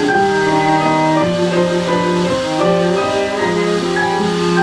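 Background music: an instrumental passage of a French song, held notes and chords with no voice.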